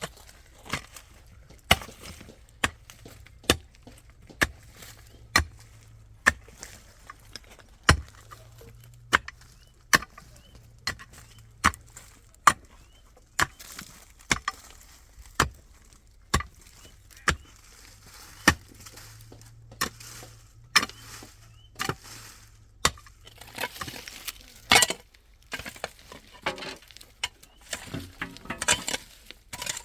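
A hand tool striking steadily, about one sharp blow a second, like chopping; in the last few seconds the blows come quicker and less regularly, mixed with clinks.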